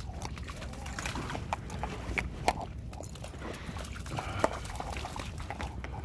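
Footsteps and a dog's paws on a wet, muddy trail, with small splashes as the dog walks through a shallow trickle of water. Scattered clicks throughout, and two sharper clicks about two and a half and four and a half seconds in.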